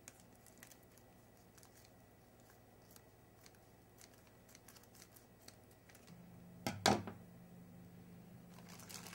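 Scissors snipping through a thin plastic mailer bag in faint, scattered clicks. About seven seconds in comes one louder sharp knock, then the plastic starts to crinkle near the end.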